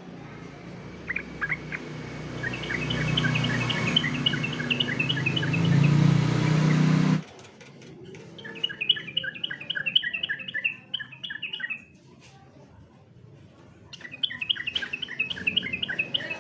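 Yellow-vented bulbul (trucukan) singing in runs of quick, repeated chattering notes: three runs, with short pauses between them. Under the first run is a loud low hum that cuts off suddenly about seven seconds in.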